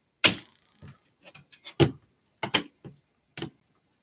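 Handling noise: an irregular run of short clacks and rustles, about ten in four seconds, the loudest near the start and a little under two seconds in, of trading cards in hard plastic holders being picked up and set down.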